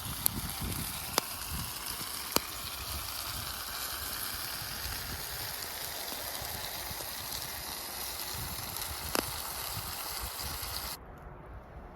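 Food sizzling and frying in a pan as a steady high hiss, with a few sharp pops; the sizzle cuts off abruptly about eleven seconds in.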